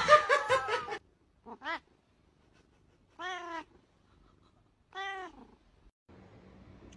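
A cat meowing three times: one short meow, then two longer, arching meows.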